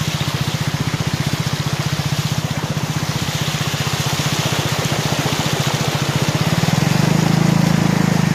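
A two-wheeler's small engine running steadily while riding through floodwater, with a steady hiss of water from the tyres. The engine gets louder near the end.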